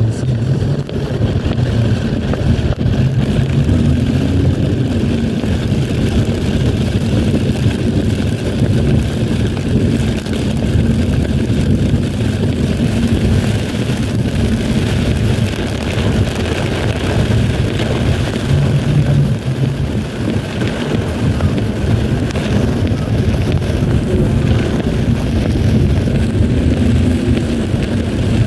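Inside a moving car on a rain-soaked road: a steady low engine and road drone, with an even hiss of water over it.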